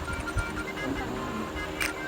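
Background music with short, repeated high notes over a low pulse, and one brief sharp click near the end.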